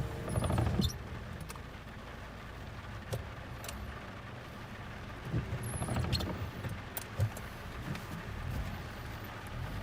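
Off-road vehicle's engine running at low revs on a rough dirt track, with knocks and rattles from the body and suspension. The loudest knocks come about half a second in, around six seconds in, and once sharply about seven seconds in.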